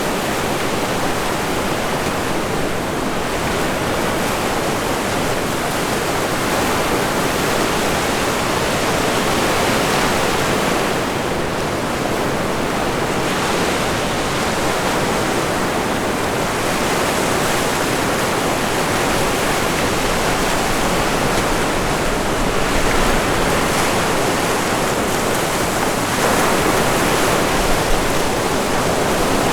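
Ocean surf and wind on a beach: a steady, loud rush of breaking waves that swells a little now and then.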